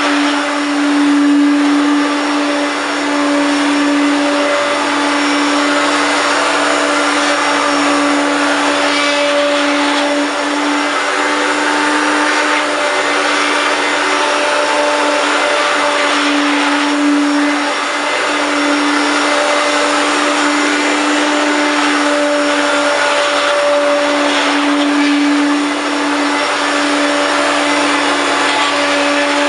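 1993 Hoover Turbopower 1 U2798 vacuum cleaner running steadily: an even motor whine over a rush of air, its pitch and level wavering slightly.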